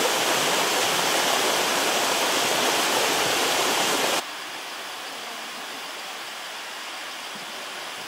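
Water rushing in a shallow sheet over the limestone of a waterfall, a steady noise. About four seconds in it drops abruptly to a quieter, more distant rush.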